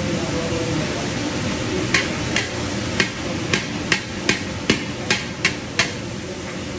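Long metal spatula clanking against the side of a large iron wok as shredded vegetables are stir-fried: about ten sharp strikes, two to three a second, starting about two seconds in, over a steady background rush.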